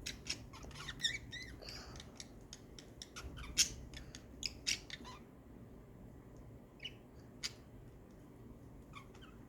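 Birds chirping and squawking in short, sharp calls, thick and quick for about the first five seconds, then only a few scattered calls.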